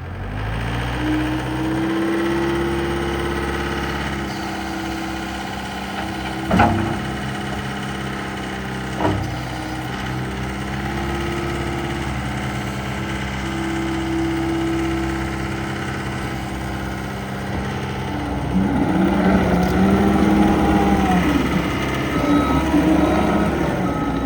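John Deere 325G skid steer's diesel engine running steadily, with two sharp knocks about six and a half and nine seconds in. From about eighteen seconds it gets louder and its pitch wavers up and down.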